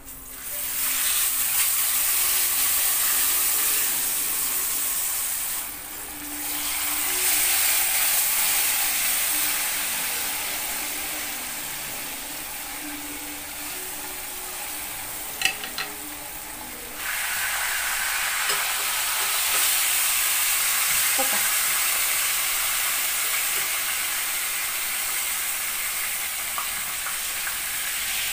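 Whole fish sizzling as they fry in hot oil with garlic in a wok. The sizzle jumps up about half a second in as a fish goes into the oil, and there are a couple of sharp clicks about halfway through.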